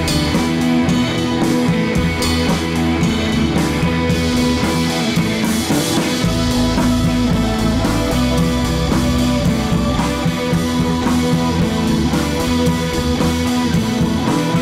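Instrumental background music with guitar and drums, playing steadily; a deeper bass comes in about six seconds in.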